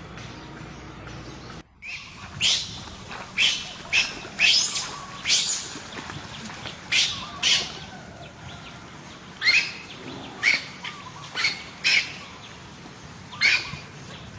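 About a dozen short, high-pitched squeaky animal calls at irregular intervals, starting after a brief cut in the audio.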